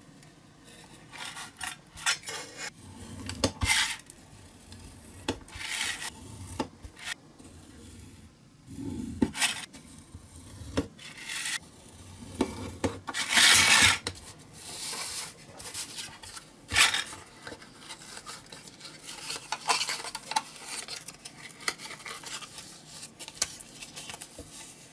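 Utility knife cutting thin printed card along an aluminium ruler: short scraping strokes, with the ruler and knife knocking on the cutting mat, and one longer, louder stretch about halfway through. In the later part the cut card is bent and creased into a box, giving softer rustles and clicks.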